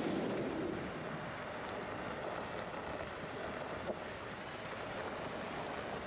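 Steady rumble of a vehicle moving slowly on a gravel road, with wind noise on the microphone, and one small knock about four seconds in.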